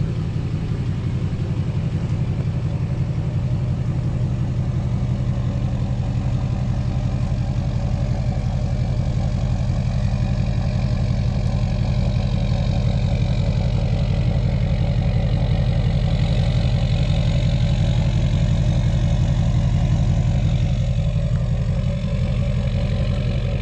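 6.6-litre LBZ Duramax turbo-diesel V8 idling steadily through a 5-inch straight-pipe exhaust, with a fast, even diesel pulse.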